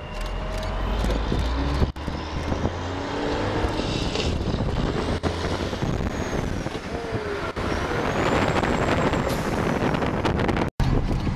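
Western Star heavy-haul truck's diesel engine running and revving while pulling a lowboy loaded with an excavator, its pitch rising and falling several times. The sound cuts out briefly near the end.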